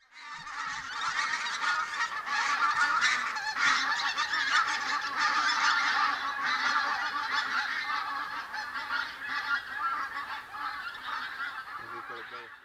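Flock of wild geese honking, many calls overlapping into a continuous clamour. It swells up at the start and eases off near the end.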